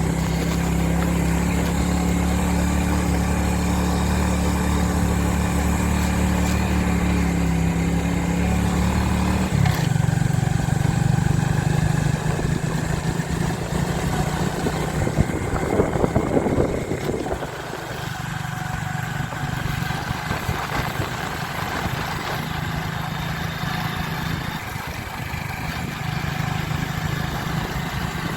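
Motorcycle engine running steadily. About ten seconds in, its note changes abruptly. Some irregular clattering follows a few seconds later, and then the engine runs on at a lower level.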